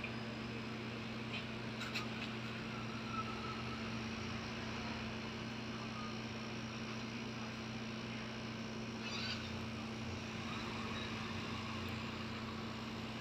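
Quiet background: a steady low hum with a faint haze of noise, and a few small faint clicks about two and three seconds in.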